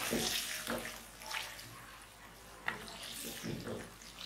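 Wooden spoon stirring chicken pieces through a simmering yogurt gravy in a karahi, wet squelching and sizzling in uneven strokes, with one sharp click a little past the middle.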